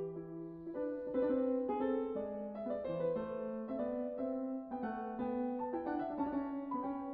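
Background piano music: a slow melody of held notes over lower notes, changing about once a second.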